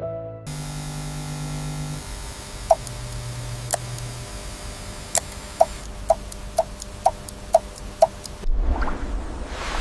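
Held music notes fade out, then a clock-like ticking sound effect runs at about two ticks a second, each tick with a short pitched ping. A swell of noise rises near the end.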